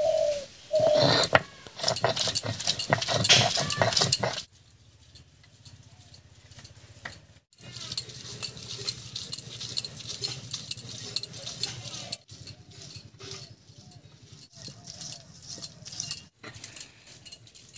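Stone roller of a sil-nora rocked and rolled over boiled cauliflower leaves on a flat grinding stone. For the first four seconds or so it makes a loud, dense run of knocks and clacks, then stone-on-stone taps and scrapes go on more quietly.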